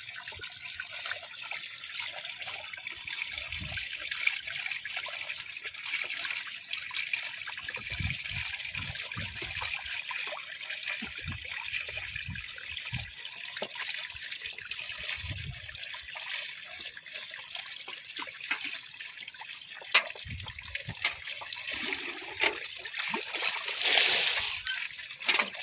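Shallow water trickling and splashing steadily over mud, with a few short knocks and a louder rush of water near the end.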